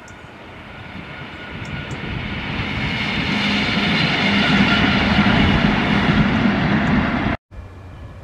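A Merseyrail Class 507/508 third-rail electric multiple unit passes. Its rumble builds as it approaches, then holds loud with a steady whine over the rumble. The sound cuts off abruptly about seven seconds in, leaving faint wind noise.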